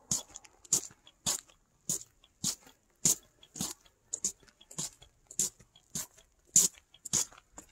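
Footsteps crunching on snow at a steady walking pace, about two steps a second.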